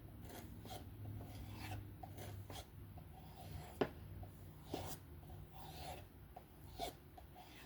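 Benchmade Bugout's M390 blade being stropped on a hard strop, edge trailing, to take the remaining burr off the tip: a series of faint swishing strokes, about two a second.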